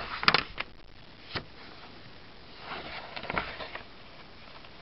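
Paper pages of a paperback book being handled and turned: sharp paper flicks near the start, a single tick about a second and a half in, and a longer rustle of pages around three seconds in.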